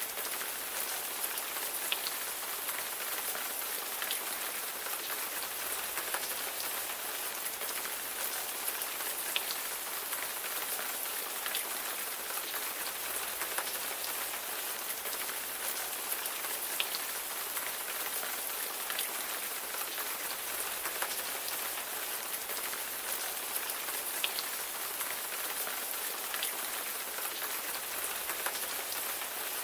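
Steady rain falling, an even hiss with sharp individual drops ticking on a hard surface scattered throughout.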